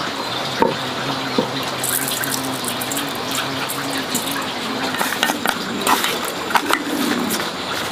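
Wooden chopsticks clicking and scraping against a stainless steel bowl as raw fish pieces are turned in their marinade, a series of sharp taps starting about five seconds in, over a steady rushing background.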